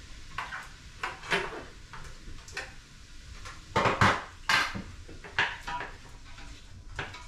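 Irregular clinks and knocks of a utensil against a pan while chopped vegetables cook in butter, the loudest few clustered around the middle.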